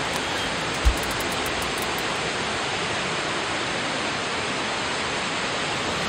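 Steady rush of whitewater river rapids, with one low thump about a second in.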